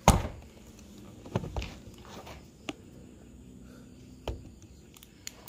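Sparse knocks and clicks in a quiet room: one loud thump right at the start, then a few softer knocks spread out.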